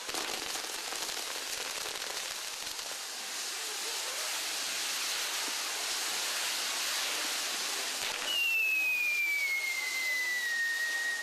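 Castillo fireworks tower burning, its spinning wheels and lances hissing and crackling in a dense spray of sparks. About eight seconds in, a high whistle comes in and slowly falls in pitch.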